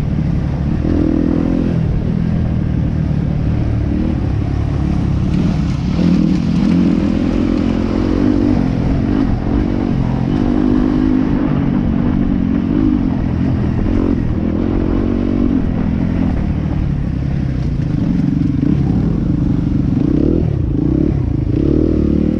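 Yamaha WR250F single-cylinder four-stroke enduro motorcycle with an Akrapovic exhaust being ridden, its engine note rising and falling with the throttle.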